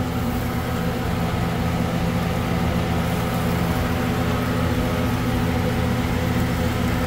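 A steady low mechanical hum, like a motor or engine running, holding one even pitch throughout.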